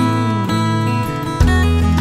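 Background music: a strummed acoustic guitar track, with a fuller bass coming in near the end.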